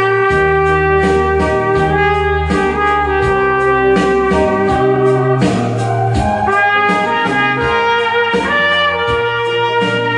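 Trumpet playing a melody in held notes over an accompaniment with a bass line and a steady beat.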